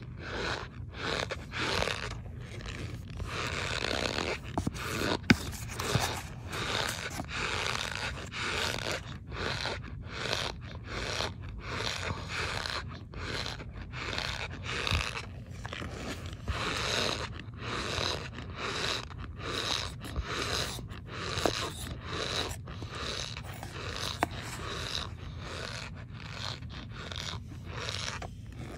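Packed cornstarch crunching and squeaking as it is pressed and broken, in a steady run of short crunches about once a second.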